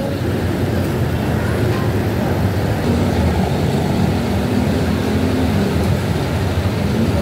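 Steady rumble of road traffic passing on the street below, vehicle engines running, with a low engine hum standing out for a few seconds in the middle.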